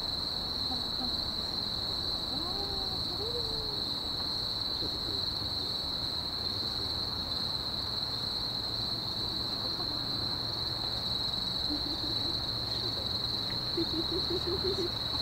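A continuous high chirring of night insects, steady and unbroken, over a low distant city rumble, with faint far-off voices now and then.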